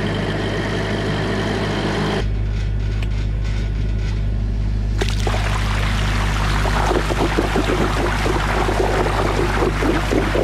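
Engine of an irrigation motor pump set running with a steady hum. About five seconds in, water starts gushing and splashing loudly out of a large pipe outlet, the surface pump's delivery, over the hum.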